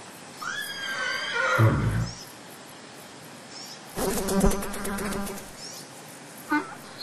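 Two zebra calls, each about a second and a half long: the first about half a second in, the second about four seconds in as a harsher run of rapid pulses.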